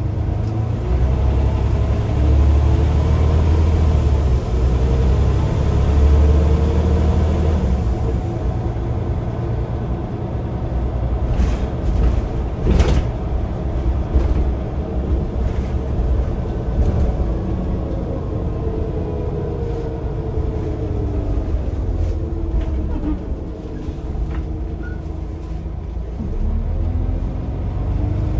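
Scania OmniCity single-decker bus heard from inside the saloon while running: a heavy low engine rumble with a whine that rises and falls as the bus speeds up and slows. A sharp knock about halfway through.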